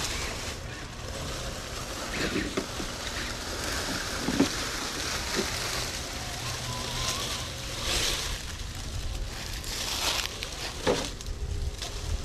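Wind buffeting the microphone, with a few short knocks and scrapes scattered through it.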